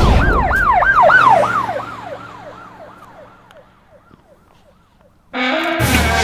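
Emergency-vehicle siren in a fast rising-and-falling yelp, about four or five sweeps a second, fading away over a few seconds. About a second before the end, a loud steady sound made of several tones cuts in suddenly.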